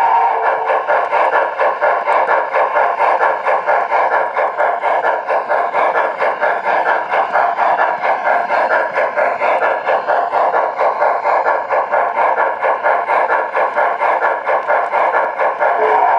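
Sound system of an MTH Premier Great Northern S-2 4-8-4 O-gauge model steam locomotive (Protosound 2) chuffing in a steady, rapid rhythm as the train runs. Heard up close from a car coupled right behind the locomotive.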